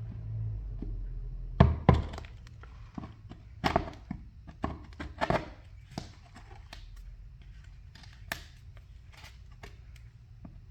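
Irregular knocks and thunks of hand tools working at a wall outlet box. Two sharp, loud knocks come about two seconds in, then a run of lighter taps, with one more knock past the middle.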